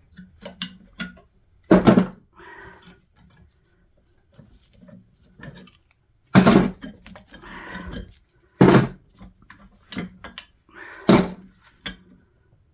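Metal clanking and knocking from hand tools working on the potter's wheel's parts: four loud strikes among smaller clicks and clatter.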